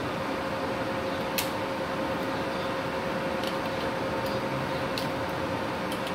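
Three MultiPro MMA inverter arc welders switched on and idling at 120 amps with no arc struck, their cooling fans making a steady hum with a constant tone. A few sharp ticks sound over it, the clearest about a second and a half in.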